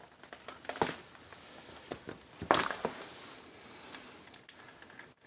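A few light knocks and clicks of an Allen key and bolts being handled while side-cover bolts are fitted. The sharpest knock comes about two and a half seconds in, with another near one second.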